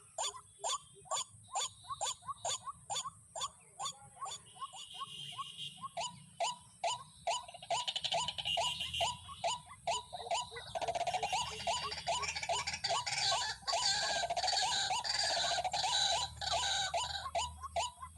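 White-breasted waterhen (dahuk) calling in a rapid, steady series of short notes, roughly three a second. A rougher, noisier sound overlaps the calls through the middle of the stretch.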